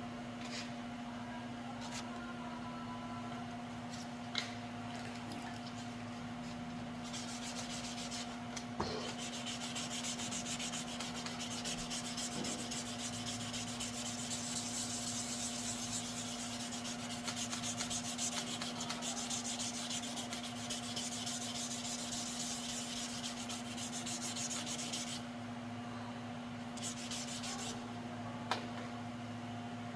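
Sanding of a scooter body panel in paint preparation: a steady rasping that starts about seven seconds in and stops about five seconds before the end, over a constant electrical hum. A few sharp clicks occur.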